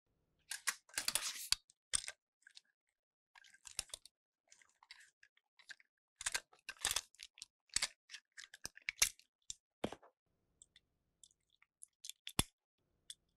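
Hard plastic toy train handled up close: clicks, scrapes and rattles as its body shell is worked off the battery-powered motor chassis, with a few sharp snaps.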